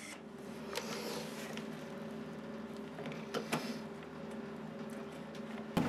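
Steady electrical hum of an idling MIG welding set, with a few light metal clicks and taps as the steel repair panel is handled between tack welds.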